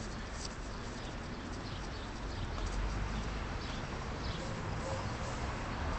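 City street ambience: a steady hum of traffic, with light footsteps on the sidewalk ticking now and then.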